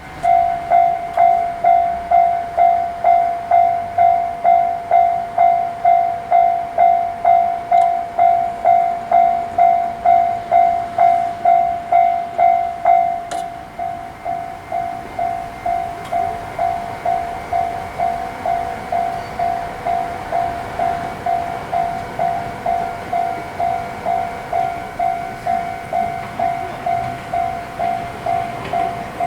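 Japanese railroad crossing bell ringing its two-tone electronic ding, about two strikes a second. About 13 seconds in it drops to a noticeably lower volume and keeps ringing.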